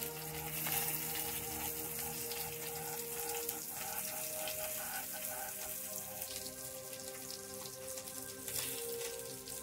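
Fish pieces frying in oil in a pan, a steady sizzling hiss, with soft background music of long held notes.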